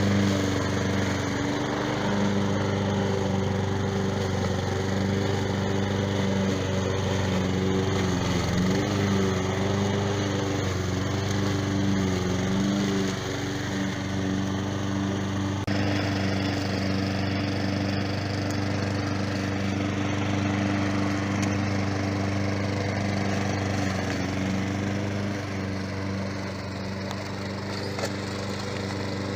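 Engine of a remote-controlled tracked lawn mower running steadily, its pitch wavering for a few seconds near the middle. About halfway through, the hissing upper part of the sound drops away suddenly while the engine note carries on.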